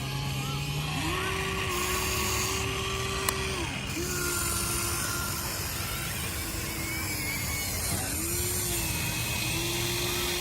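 Remote-controlled toy excavator's electric motors whining as it digs sand, in repeated spells of one to three seconds that each rise in pitch, hold, then fall away, over a steady hiss. A single sharp click about three seconds in.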